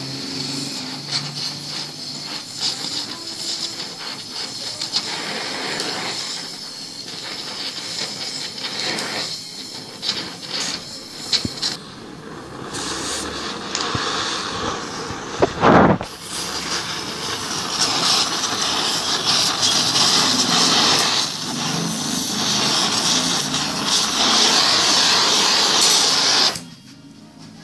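Oxy-acetylene torch flame burning steadily while it melts filler rod into a crack in an aluminium part. There is one sharp, loud thump about halfway through, and the flame noise cuts off suddenly near the end.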